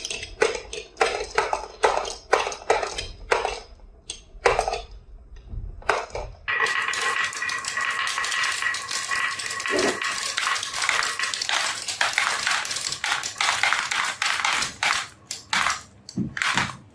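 Marbles clacking down a marble run: separate clicks for the first six seconds, then a sudden, dense clatter of many marbles rolling at once from about six and a half seconds, which stops just before the end.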